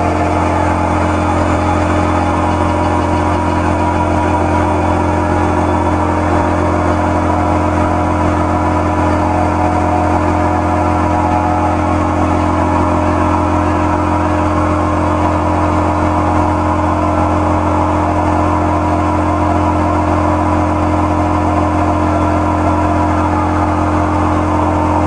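Electronic drone noise music played live from a laptop: a loud, unchanging low rumble with a steady hum above it and a grainy, shifting texture in the middle range.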